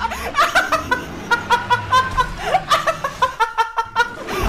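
A person laughing in a long run of quick, high-pitched bursts, about five a second.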